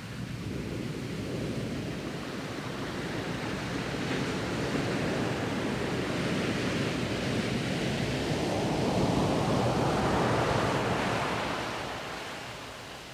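Small waves washing onto a sand beach, a steady hiss that swells to its loudest about two thirds of the way through and then fades.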